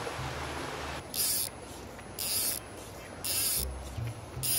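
Fly reel's ratchet buzzing in four short, high-pitched bursts about a second apart, as line is pulled off the reel by hand.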